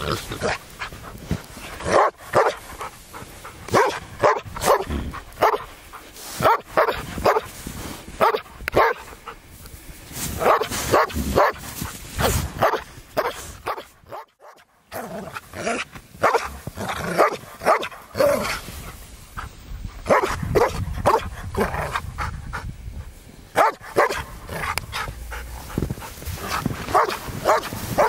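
Hovawart dog barking repeatedly in quick runs of short barks while fighting wild boar, with a brief pause about halfway through.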